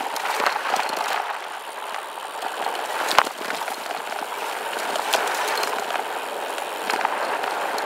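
SCOTT Addict Gravel 10 gravel bike rolling fast downhill over dirt and rocks: steady tyre noise with frequent rattling clicks, and one sharp knock about three seconds in.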